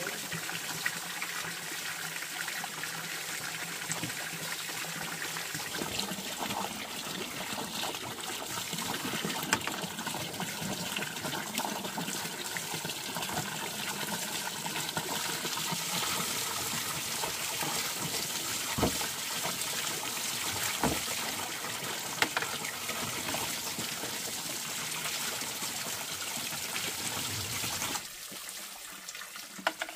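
Water running in a steady trickling pour, with a few light knocks, stopping about two seconds before the end.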